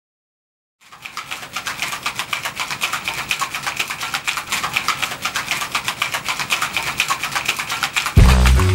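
Ice rattling in a cocktail shaker as it is shaken hard: a fast, even rattle of many sharp clicks a second that fades in after a moment of silence. Loud music with a heavy bass comes in near the end.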